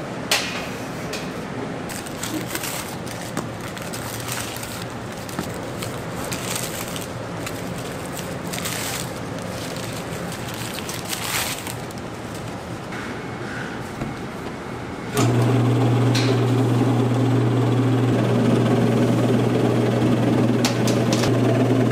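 Cake-factory machinery: steady clatter with scattered clicks and knocks. About two-thirds of the way through, a loud steady machine hum starts suddenly.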